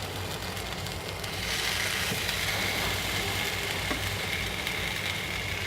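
French toast sizzling in butter in a hot non-stick pan, a steady frying hiss that grows a little louder about a second and a half in, over a low steady hum.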